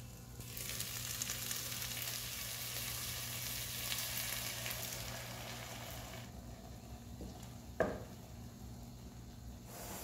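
Bacon and calabresa sausage sizzling in a pot. The sizzle dies down about six seconds in as thick blended cassava is poured over it, followed by a single short knock about two seconds later.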